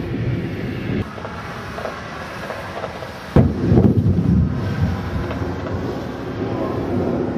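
Thunder from a supercell: low rolling rumble, with a sharp crack a little over three seconds in followed by a louder rumble that fades away.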